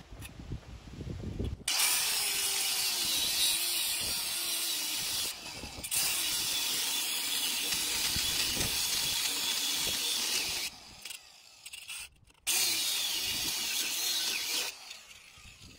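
Angle grinder cutting through a seized steel shock-absorber bolt in its lower bushing, in two runs: a long cut starting a couple of seconds in and lasting about nine seconds, a short pause, then a cut of about two seconds. A steady, hissing grind with the motor's pitch wandering under load.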